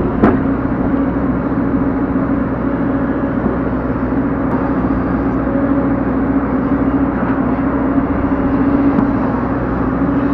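Excavator's diesel engine running steadily with a constant hum. A single sharp knock comes just after the start.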